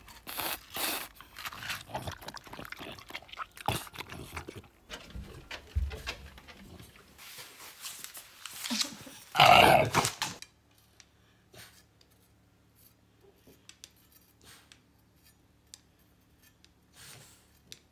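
French bulldog grunting and snuffling in short irregular bursts while its face is wiped with a tissue, with one loud, noisy sound about nine and a half seconds in. After about ten seconds there are only faint scattered ticks.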